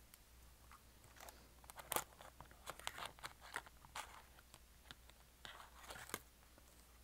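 Fingernails tapping and scratching on a small black plastic case held in the hands: an irregular run of sharp clicks and short crinkly scrapes, thickest in the middle and stopping a little before the end.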